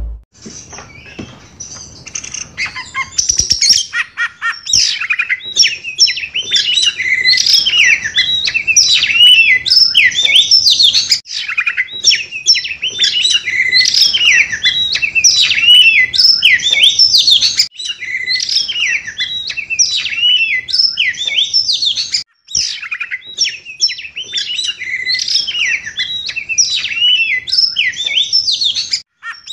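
Caged oriental magpie-robin (kacer), just past its moult, singing a long, continuous song of quick, varied sweeping notes, with a few brief pauses.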